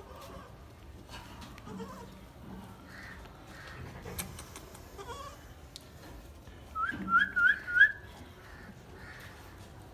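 Gulabi goat kids bleating: faint bleats through, and a loud high call of four quick rising notes about seven seconds in.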